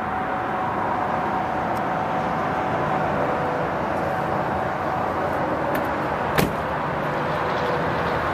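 Steady outdoor traffic noise from a nearby freeway, with a faint steady hum under it and one sharp click about six and a half seconds in.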